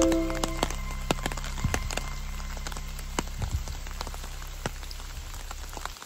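Rain falling in a wet forest, with scattered individual drops heard as sharp irregular taps on leaves and the ground.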